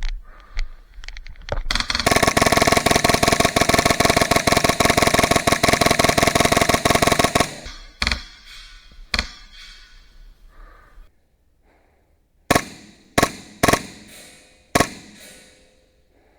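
HPA-powered airsoft rifle (Krytac Trident PDW with a Polarstar F2 engine) firing a long full-auto burst of about five and a half seconds, with a steady ringing tone under the rapid shots. Then single shots follow: two in the next couple of seconds and four more near the end.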